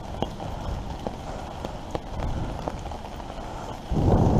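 Steady rain with scattered drops ticking at irregular intervals. Near the end a gust of wind buffets the microphone with a sudden loud rumble.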